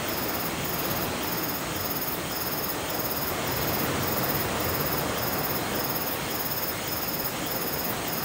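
Steady wind and surf noise on an exposed shore, with a high-pitched pulsing sound repeating about twice a second over it.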